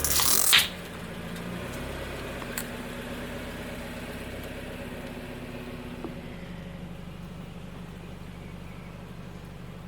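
Car tyre crunching over a crunchy object, cut off about half a second in, followed by the car's engine idling steadily with a couple of faint clicks.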